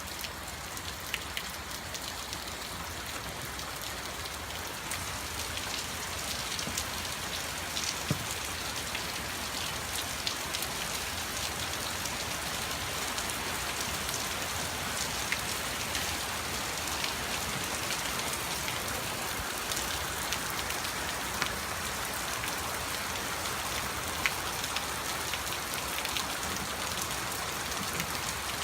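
Heavy rain falling steadily, a dense hiss with scattered sharp drop ticks, growing slightly heavier after the first few seconds.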